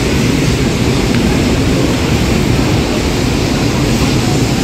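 Wind buffeting a phone microphone: a loud, steady rumble with no distinct events, heard while walking in the open.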